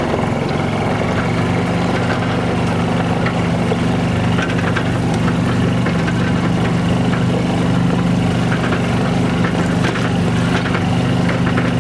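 Small engine of a slow-moving open utility vehicle, running steadily at an even pitch, with scattered light clicks.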